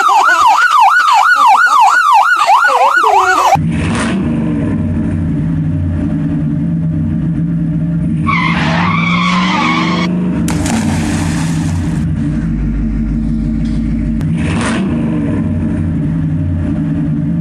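An emergency siren wails in a fast up-and-down warble, cutting off abruptly about three and a half seconds in. A vehicle engine then runs steadily, with a brief tyre squeal near the middle and a short hiss just after it.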